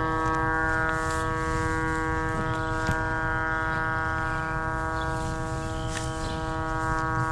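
Utility cable locator giving out a steady electronic tone, a held pitch with many overtones, while the signal is applied to the coax cable, over a low rumbling background.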